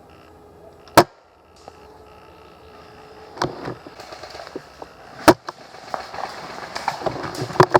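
Airsoft gun firing single shots: a sharp snap about a second in, a fainter one a little past the middle, and another loud one about four seconds after the first, then a busier patter of quicker snaps and knocks building near the end.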